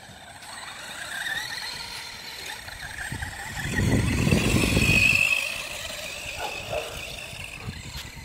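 Reely Dune Fighter RC buggy's motor whining as it races over grass, the whine rising and falling in pitch with the throttle. It is loudest from about three and a half to five seconds in, where a low rumble joins the whine.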